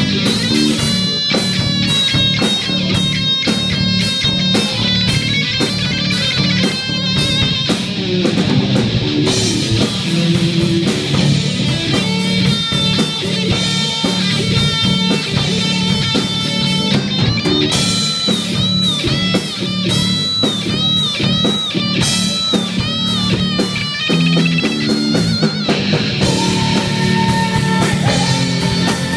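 Live rock band playing without vocals. An electric guitar lead with bent, wavering notes runs over bass guitar and a drum kit.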